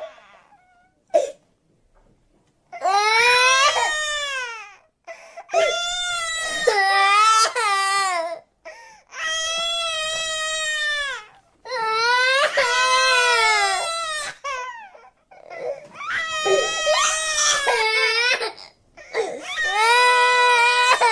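A cartoon child character crying: about six long, high-pitched wailing sobs, each one to three seconds long and bending up and down in pitch, with short breaths between them.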